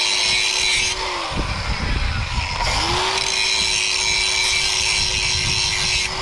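Angle grinder sharpening a lawn mower blade. The grinder runs with a high grinding hiss and is switched off about a second in, winding down. It spins up again just under three seconds in, grinds again, and winds down near the end.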